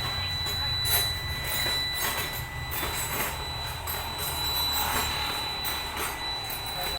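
Isuzu 4HL1 diesel engine running at a steady idle after being revived from a no-start caused by flood water. A steady high-pitched tone sits over the low engine rumble, with scattered light clicks.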